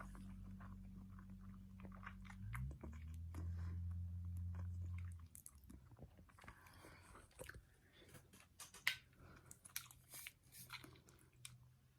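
Faint chewing and mouth sounds of people eating spicy food: soft, irregular clicks and smacks. A low steady hum runs underneath, shifts up about two and a half seconds in, and cuts off about five seconds in.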